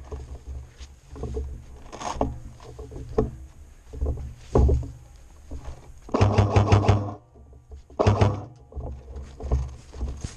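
Rustling and low rumbling of a player moving through long grass. About six seconds in, an airsoft rifle fires a one-second full-auto burst of rapid clicks, about nine a second. A second, shorter burst follows about two seconds later.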